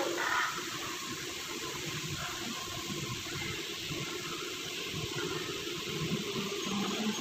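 Steady hissing background noise with no distinct event in it.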